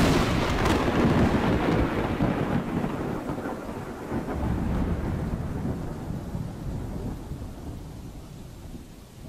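A sudden loud thunderclap, then a long low rolling rumble that slowly fades over the following seconds.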